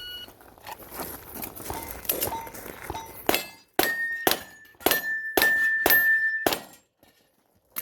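A string of seven pistol shots about half a second apart at steel targets, several followed by the ring of a struck steel plate. Before them there are fainter pops with short rings.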